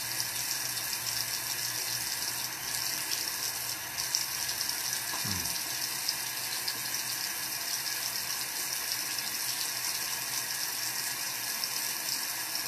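Bathroom sink tap running steadily while cupped hands splash water onto the face to rinse off a clay face mask.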